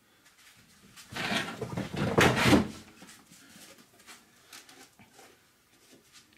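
Handling noise as a plastic jug of shock oil is fetched and opened: a scraping, rustling clatter lasting about two seconds, starting about a second in, then a few light clicks.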